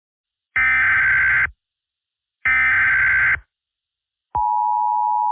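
Emergency Alert System tones: two loud, roughly one-second bursts of SAME header data screech about two seconds apart, then a steady attention tone starts about four seconds in.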